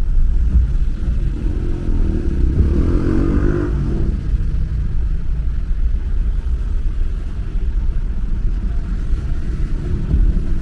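Road noise of a car being driven: a steady low rumble, with another vehicle passing about three seconds in.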